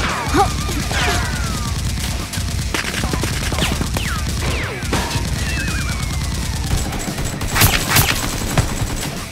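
Rapid gunfire sound effects, with volleys of shots throughout and a heavier cluster near the end, laid over a Nerf blaster fight. Several short falling whistles, like ricochets or passing rounds, come in the first half.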